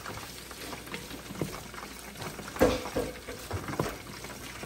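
Ground beef, corned beef and sliced hot dogs frying in a pot with a faint sizzle, while a wooden spoon stirs and scrapes through them, knocking against the pot several times.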